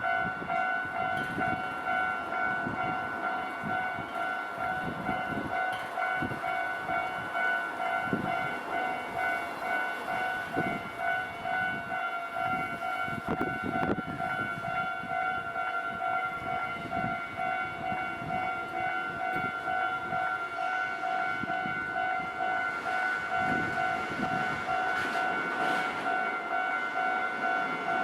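Japanese railway level crossing's electronic warning bell ringing over and over in a rapid steady rhythm, while a train rumbles through the crossing.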